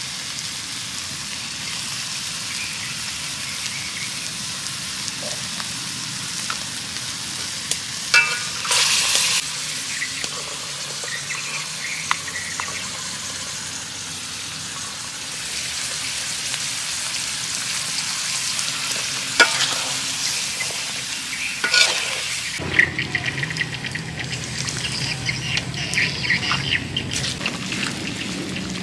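Frog curry sizzling and frying in a metal wok over a wood fire, a steady hiss broken by a few sharp scrapes and knocks of a metal spatula on the pan. The sound changes abruptly about three-quarters of the way in, turning more crackly.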